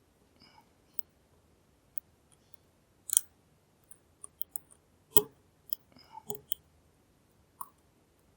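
Irregular light metallic clicks and taps of a dimple-lock flag pick and tension bar working the pins inside a NEMEF NF4 dimple lock. Some clicks carry a brief small ring, and the loudest come about three and five seconds in.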